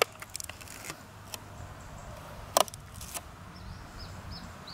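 Scattered small clicks and crackles of a clear plastic-bottle canopy and packing tape being handled against a foam model-plane fuselage, with one louder click about two and a half seconds in. A small bird chirps in quick repeated notes near the end.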